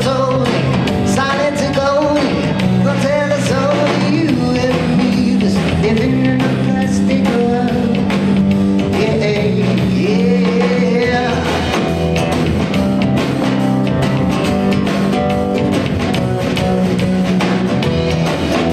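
Live band playing a song: drum kit, bass guitar and guitar, with a voice singing over the first half or so.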